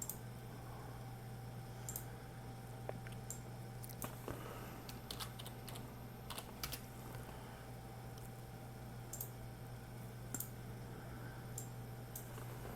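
Sparse, irregular computer keyboard keystrokes, a click every second or so, over a steady low electrical hum.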